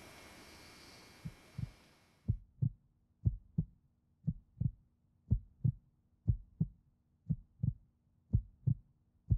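Human heartbeat: paired lub-dub thumps, steady at about one beat a second, beginning about a second in. Faint tape hiss fades out in the first two seconds.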